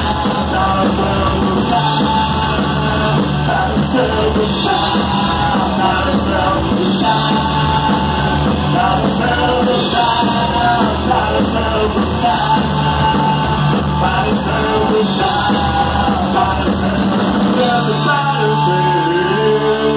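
A live punk rock band plays loud: distorted electric guitar, bass guitar and drum kit with cymbal crashes, and a lead singer singing into a microphone over them. Near the end the drums drop out and a chord is left ringing.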